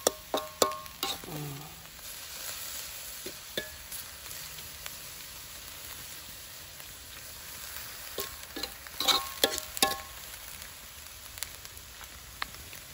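Minced pork frying in a blackened wok with a steady sizzle, while a metal spoon stirs it, clinking and scraping against the pan. A quick run of clinks comes in the first second and another about eight to ten seconds in.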